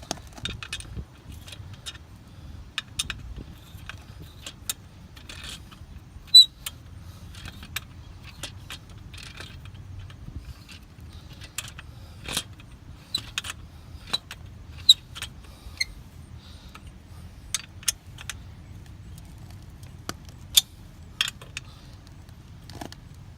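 Irregular sharp metallic clicks and clinks of an Allen key working the bolt that screws a 10 mm spool into the threaded hole on a motorcycle swingarm, over a faint steady low hum.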